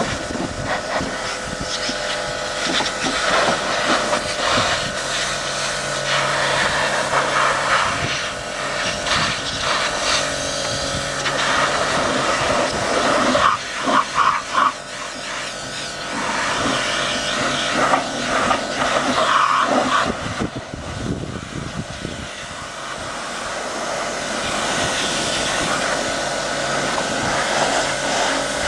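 Kärcher pressure washer running, its motor giving a steady whine under the hiss of the water jet spraying a fibreglass boat deck; the spray noise swells and dips as the lance is moved over the deck.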